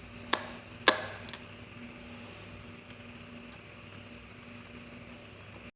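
Two sharp clicks about half a second apart, the second the louder with a short ring after it, then a few faint ticks, over a low steady hum.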